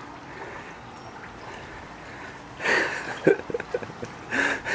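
Swimming-pool water lapping, then louder splashing about two-thirds in and again near the end, with brief bits of voice mixed in.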